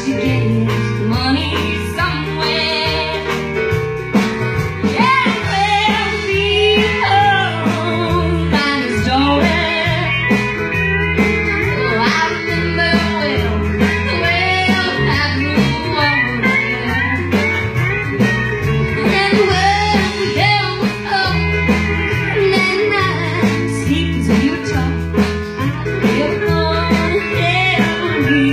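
Live country band playing a song, a woman singing lead over drums, keyboard and pedal steel guitar.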